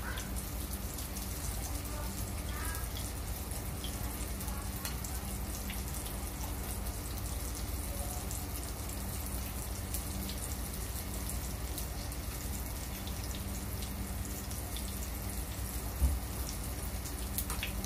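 Daing na bangus (split dried milkfish) frying in oil in a pan: a steady sizzle with fine crackles and spatters. A single sharp knock about two seconds before the end.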